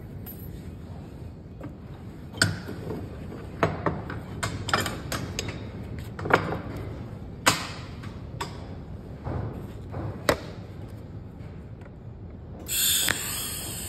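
Knocks and clanks of a heavy steel forklift axle part being turned and set down on a steel welding bench, eight or so sharp knocks spread over about ten seconds. About a second before the end a TIG welding arc strikes and runs on as a steady hiss.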